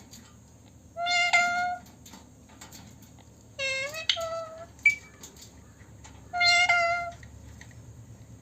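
A talking parrot imitating a cat's meow three times, each call a short pitched miaow about half a second long, separated by pauses of a couple of seconds.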